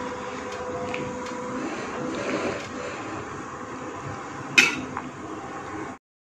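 Pot of water boiling on a gas stove with a steady rushing noise as papaya leaves are stirred with a metal slotted spoon; the spoon clanks sharply against the stainless steel pot once, about four and a half seconds in. The sound cuts off abruptly near the end.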